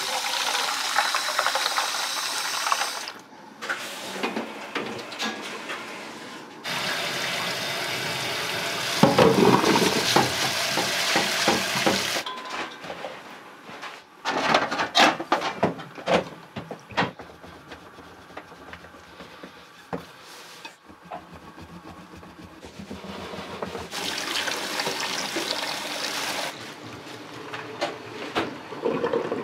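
Water running from a kitchen tap in several spells of steady splashing, with pots and utensils clattering in between.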